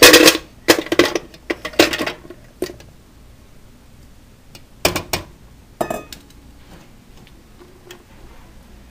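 Old metal coffee pot clattering as solid candle-wax discs are tipped into it and the pot is handled: a quick run of clinks and knocks in the first two seconds, then a few scattered knocks, the last about six seconds in with a brief metallic ring.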